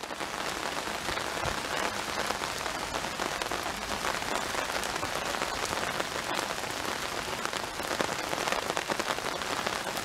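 Heavy rain hitting an umbrella held overhead: a steady, dense crackling patter of drops.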